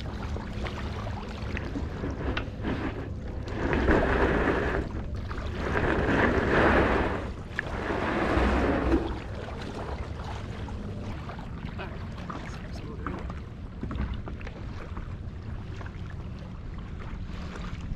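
Shallow lake water lapping and sloshing against a paddle board as it is pushed off the shore, with wind on the microphone. Three louder rushing surges come between about four and nine seconds in.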